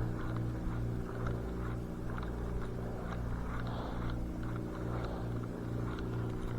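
A steady low engine hum that pulses about twice a second, with a few faint ticks over it.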